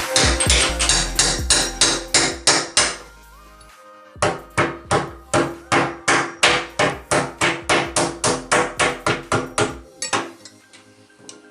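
Rapid, evenly spaced hammer blows, about four a second, in two runs with a short pause about three seconds in, stopping near the end. Background music plays underneath.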